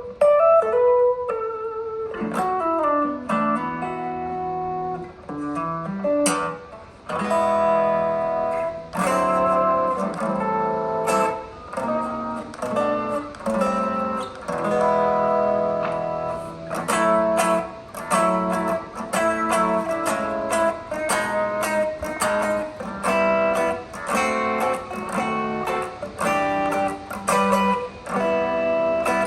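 Widjoyono Telecaster-style electric guitar on a clean tone, with no distortion. For the first several seconds it plays a single-note line with bends and slides. From about seven seconds in it plays rhythmic strummed chords.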